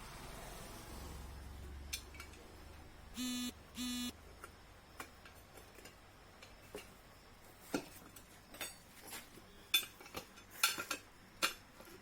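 Metal tools clinking and knocking against a scooter wheel and rim during a tyre change, in scattered sharp clicks, the loudest near the end. Two short buzzy beeps sound about three seconds in.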